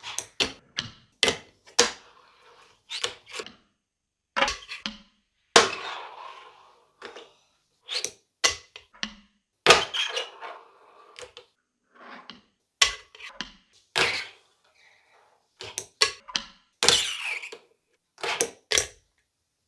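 Fingerboard being ridden: irregular sharp clacks of the small wooden deck popping and landing, with short stretches of its wheels rolling between them.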